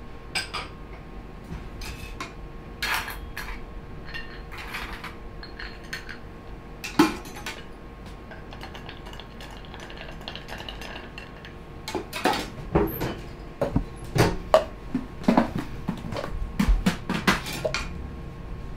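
Metal bar tools, shaker tins and glassware clinking and knocking on a bar counter, with ice stirred in a stemmed glass with a bar spoon. The knocks are scattered at first and come thick and fast in the second half.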